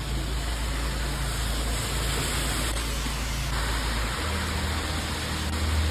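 Heavy rain pouring down, a dense steady hiss, over a low sustained background-music drone that shifts to a new note about four seconds in.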